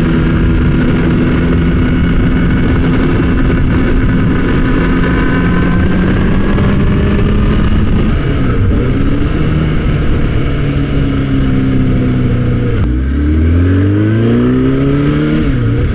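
Kawasaki ZX-10R inline-four engine running at a steady cruise over a haze of wind and road noise, then about thirteen seconds in the revs drop sharply and climb again, twice, as the bike shifts up and accelerates.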